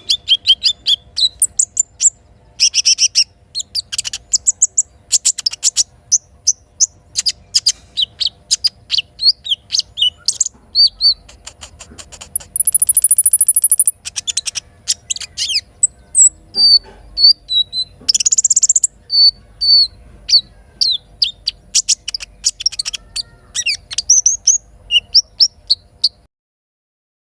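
Songbird chirping in fast, dense runs of short high chirps and whistled notes, with one long, very high sustained note about halfway through. A faint steady hum lies under it, and the sound cuts off about a second before the end.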